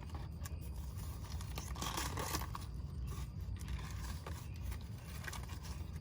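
Paper sandwich wrapper rustling and crinkling in irregular spells as a breakfast biscuit sandwich is slowly unwrapped, over a steady low rumble.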